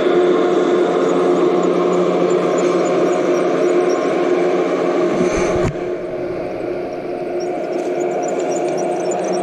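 Model trains running on the layout: a steady mechanical hum. A brief low thump comes a little past halfway, and the hum continues slightly quieter after it.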